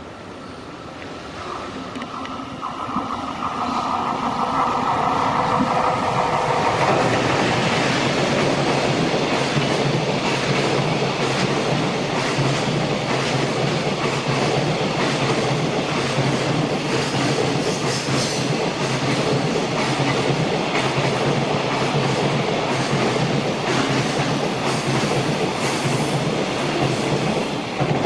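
EF210 electric freight locomotive approaching with a steady whine, then a long container freight train passing close by. The wagon wheels make a loud, steady rumble with clickety-clack from the rail joints, building over the first several seconds and dropping away at the very end as the last wagon clears.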